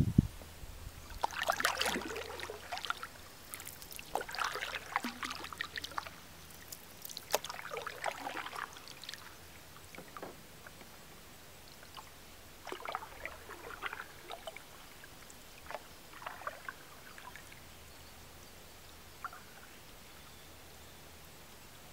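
Canoe paddle strokes in calm lake water: the blade dipping in and pulling, with splashes and drips, about every two to three seconds, growing fainter in the second half. A sharp thump at the very start.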